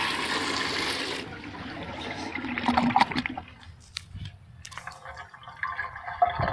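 Homemade toilet flushing: a loud rush of water that cuts off about a second in, followed by quieter trickling and a few sharp clicks.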